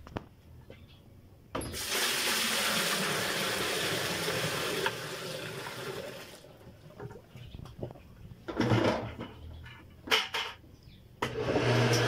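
Water poured from a bucket splashes into a top-loading washing machine tub for about five seconds, then tails off. A few knocks follow, and about a second before the end the washer's drain pump starts with a steady low hum, a sign that the pump, cleared of a clogging piece of cloth, is working again.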